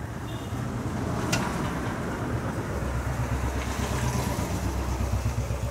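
An engine idling steadily with a low hum, and a single sharp click just over a second in.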